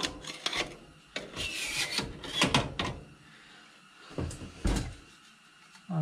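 Metal parts of a kerosene heater scraping, rubbing and clinking as they are handled and slid into place inside the heater's cabinet, with a dull knock late on.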